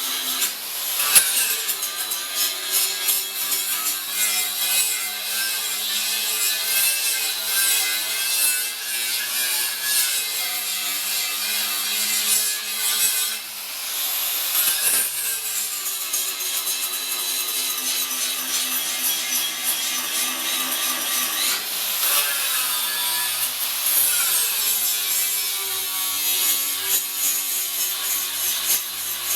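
Power grinder working steel weld seams on a fireplace door, with a continuous rasp of the disc on metal. The motor's tone wavers as the tool is pressed and eased, and it lets up briefly about halfway through.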